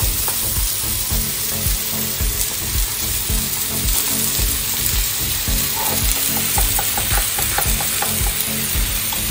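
Chicken fillets sizzling steadily in an oiled grill pan.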